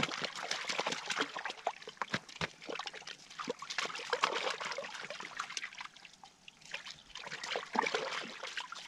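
Water sloshing, dripping and splashing in an ice-fishing hole as a hand works in it to bring up a hooked fish, with many small irregular clicks and splashes that ease off for a moment about six seconds in.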